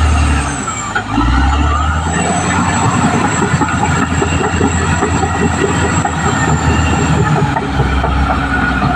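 Caterpillar D6R XL crawler bulldozer working: diesel engine running under a steady drone while the steel tracks clank rapidly, with a thin high-pitched squeal over it.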